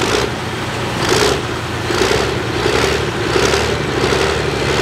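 Farmall 1206 Turbo pulling tractor's diesel engine running steadily at raised revs while the tractor sits hooked to the sled, being wound up before the pull.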